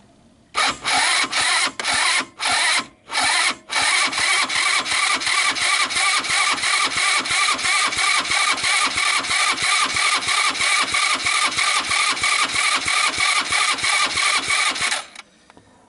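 Starter motor cranking a Sunl 150cc dune buggy engine over with a compression gauge in the spark plug hole, so it turns without firing: a few short bursts, then one long steady crank with an even, rhythmic pulse of compression strokes that stops suddenly. The gauge builds to about 140 PSI, a reading that means the engine has usable compression.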